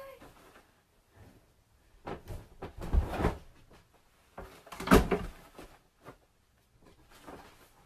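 A small dog's short rising whine at the very start, then a series of dull knocks and thumps, the loudest about three and five seconds in.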